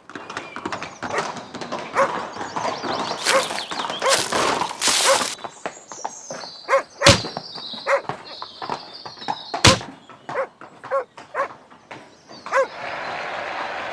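A dog barking over and over, mixed with loud crashes and two sharp impacts, like sound effects laid over a battle scene.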